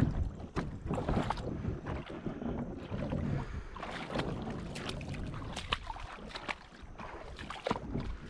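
Water sloshing and splashing around a plastic kayak in shallow water, with scattered knocks and clatters of fishing gear being handled on the hull, and some wind on the microphone.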